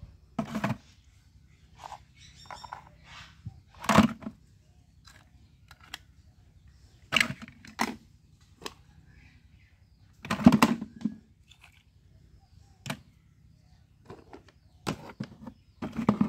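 Toy vehicles picked out of wet mud and dropped one after another into a plastic bucket: irregular knocks and clatters a few seconds apart, the loudest about ten seconds in.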